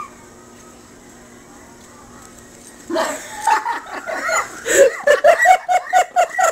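A voice cries out about three seconds in, then breaks into laughter, a quick run of short, even ha-ha bursts.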